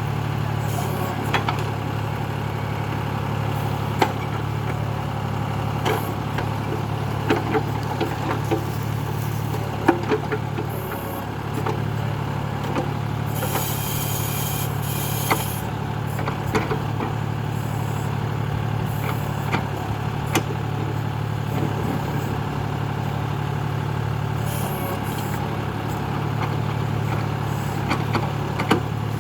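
John Deere tractor's diesel engine running steadily while working a tractor-mounted backhoe. Scattered knocks and clanks from the backhoe come throughout, and a brief hiss comes about halfway through.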